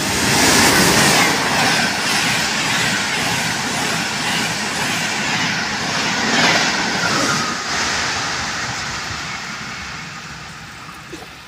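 Trenitalia Frecciarossa high-speed electric train running through the station: a loud rush of wheel and air noise that builds as the train arrives. It stays strong while the carriages go by, then fades away over the last few seconds.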